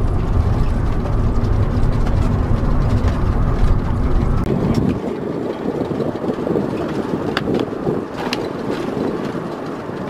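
A motorhome on the move, heard from inside the cab: a steady low engine and road rumble that drops away abruptly about four and a half seconds in. A lighter rushing noise remains after it, with a couple of faint clicks.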